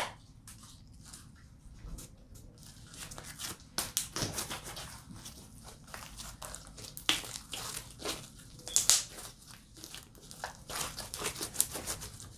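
Homemade borax slime being stretched and squeezed by hand, giving irregular sticky clicks and crackles as it pulls apart and folds.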